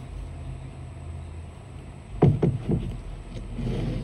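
Steady low rumble of phone handling noise, with three quick, loud knocks or bumps a little after two seconds in, as a hand reaches in for an egg.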